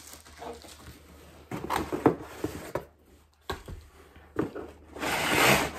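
Cardboard box and packaging being handled while parts are taken out: scattered knocks and scrapes, then a louder rustle about five seconds in.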